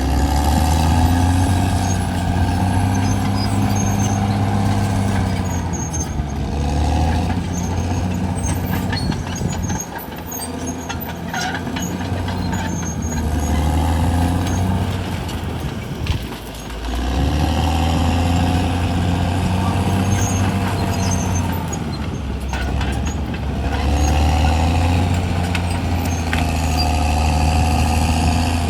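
Caterpillar D6R XL bulldozer's diesel engine working under load, its pitch and level rising and falling as the machine pushes and eases off, with brief dips about ten and sixteen seconds in.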